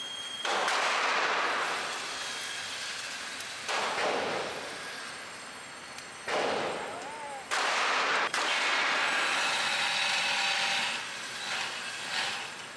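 Four .38 Special revolver shots a few seconds apart, each with a long echoing tail.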